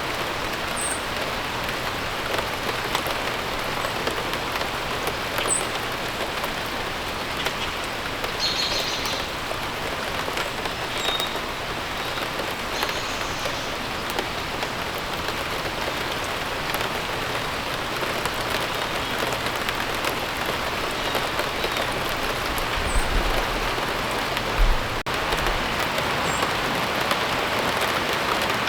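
Steady rain falling, an even dense patter, with a few brief high bird chirps scattered through it. Near the end there is a short low thump.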